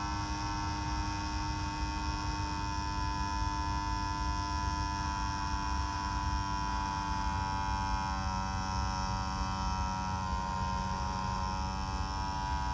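Small electric RC fuel pump, run on a 3S LiPo battery, pumping fuel out of a model airplane tank: a steady, fairly quiet electric motor whine over a low hum.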